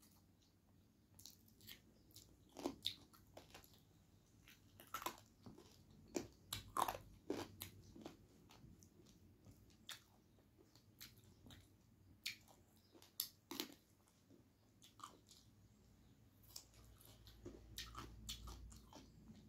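Quiet close-up eating sounds: chewing and crunching of a rice meal eaten by hand, with fingers squishing and mixing rice on a plate. Heard as irregular short clicks and crackles.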